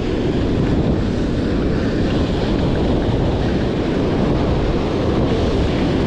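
Surf breaking on the shore close by, with wind buffeting the microphone: a steady, even rush of noise.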